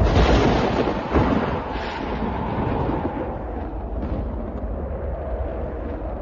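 Thunder: a loud clap right at the start and a second crack about a second in, then a long rolling rumble, over steady storm wind.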